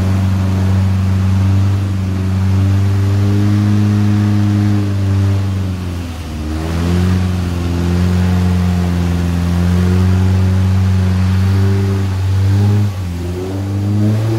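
Off-road vehicle's engine running at steady revs. Its pitch falls and climbs back again about six seconds in, and dips briefly near the end.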